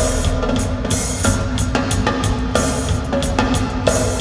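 Live band playing amplified music through a PA, driven by a drum kit with regular cymbal and drum hits over bass and electric guitars, in an instrumental passage without singing.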